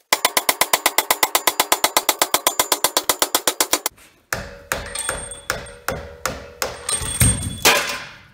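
Metal being hammered to knock a press-fit part of a generator off its shaft. First comes a fast, very even run of strikes, about ten a second, for roughly four seconds. After a short pause come separate, heavier hammer blows about half a second apart, each leaving the metal ringing.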